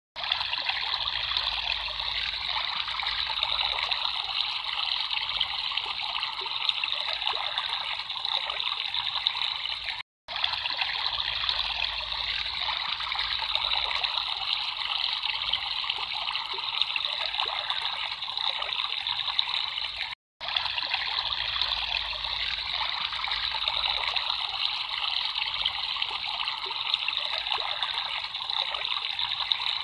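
Water trickling steadily, as in a small stream. It drops out to silence briefly twice, about ten seconds apart, where a short recording repeats.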